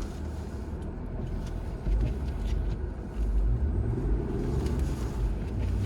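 Supercharged Jaguar XJR V8 engine running under throttle as the car pushes through snow to build momentum, with the revs rising about three seconds in.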